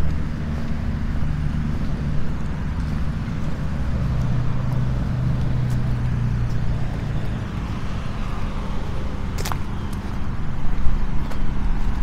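An engine running with a low, steady hum that shifts in pitch about four seconds in. A sharp click comes about nine and a half seconds in.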